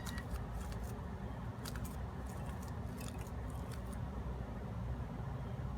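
Light plastic clicks of a 3x3 Rubik's cube being turned by hand, mostly in the first three seconds, over a steady low hum.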